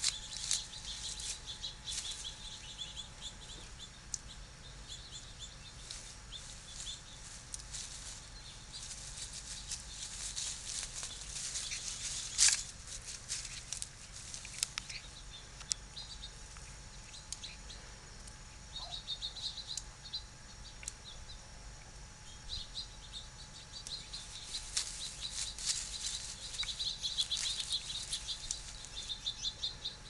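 Crackling rustle of grass and dry twigs as a kitten paws and noses about in the undergrowth, with one sharp snap near the middle. Small birds twitter in short bursts in the second half.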